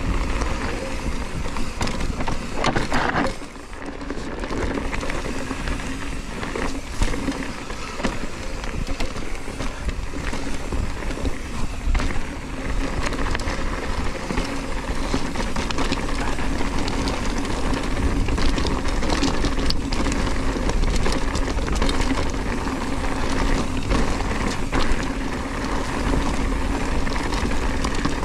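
Hardtail mountain bike riding over a dry dirt and loose-stone trail: steady tyre rolling noise, broken by frequent small rattles and knocks from the bike on the rough ground.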